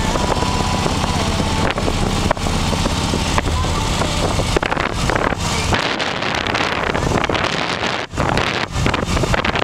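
Harley-Davidson V-twin motorcycle engine running as the bike rides along, with wind rushing over the microphone.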